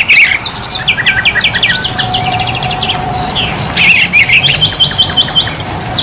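Several caged songbirds chirping and singing at once: overlapping runs of short, quick, high notes, with a steady noisy background underneath.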